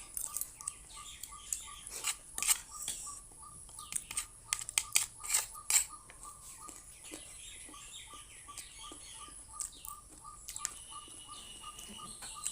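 Cutlery clinking and tapping against a plate in scattered sharp strikes, busiest in the first half. A faint, high chirp repeats evenly a few times a second throughout.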